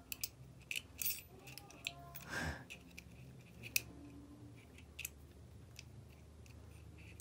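Faint, scattered small clicks and ticks of metal and plastic parts as a small tool works in the underside of an LGB model locomotive's motor block, with a brief soft rush of noise about two and a half seconds in.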